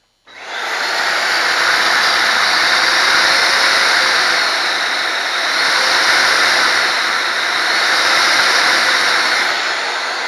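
Vacuum cleaner motor switched on just after the start and running with a loud, steady rush of air, its speed set through a rheostat after a repair of the motor control; it begins to wind down near the end.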